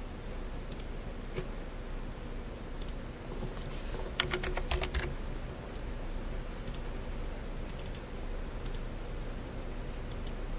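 Computer keyboard typing: a quick run of keystrokes about four seconds in, with scattered single clicks before and after, over a steady low hum.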